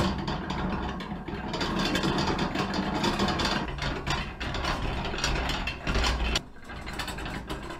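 Restored hand-cranked potato peeler being turned by its handwheel, its bevel gears meshing with a steady mechanical clatter that eases off near the end.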